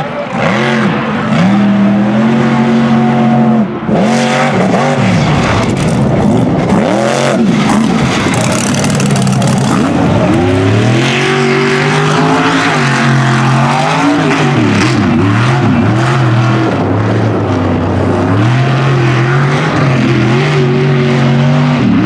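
Mega truck engine revving hard under racing load, its pitch holding for a second or two and then repeatedly climbing and dropping as the throttle is worked.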